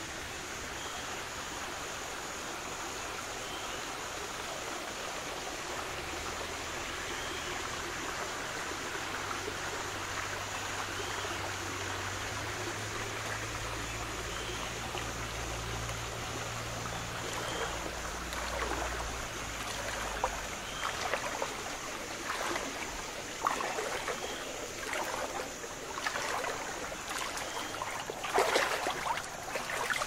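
Small rainforest stream flowing steadily, with a run of short, louder, irregular splashing sounds in the second half.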